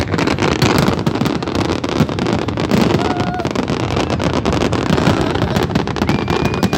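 Fireworks display going off in a dense barrage: rapid crackles and bangs over a steady low rumble, with a crowd's voices mixed in.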